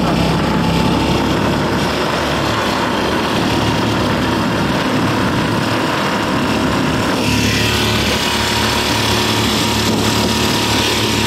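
Small dinghy outboard motor running steadily under way, with a change in its sound about seven seconds in.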